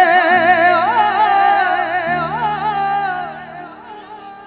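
Male Punjabi singer holding a long ornamented note with wavering pitch over sustained low keyboard chords that change about two seconds in; the voice and chords fade away in the last second and a half.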